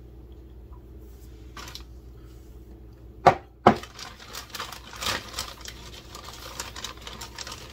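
A glass bowl set down on a counter with two sharp knocks, then a few seconds of crinkly rustling as tortilla chips are taken from their bag.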